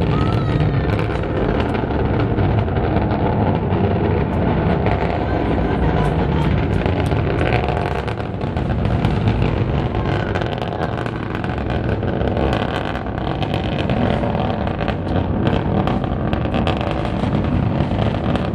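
Long March 7 rocket's engines roaring during ascent: a continuous deep rumble with crackling running through it.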